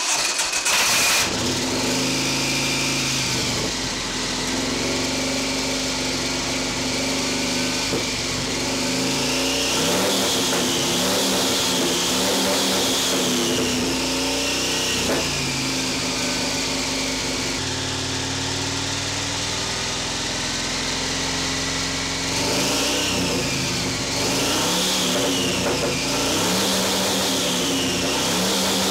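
A 132 cubic inch Victory V-twin motorcycle engine running on a dynamometer, its revs rising and falling several times.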